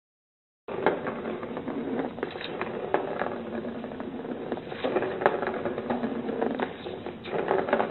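A small plastic ball rolling around the plastic track of a cat's circular scratcher toy, rattling in a dense, continuous run of small clicks. It starts just under a second in.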